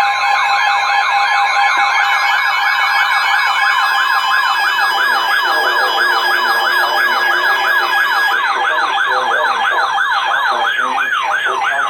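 Emergency Alert System alert tone: an electronic siren warbling rapidly up and down, with two steady tones sounding together under it for the first few seconds. The warble slows near the end and cuts off.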